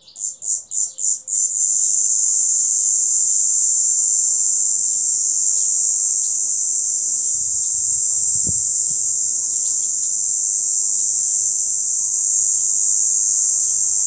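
A cicada singing: about five quick pulses, then a loud, continuous high-pitched buzz.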